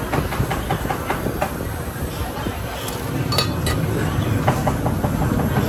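Busy restaurant din with a quick run of regular knocks, about four a second, through the first second and a half, then a few scattered clicks.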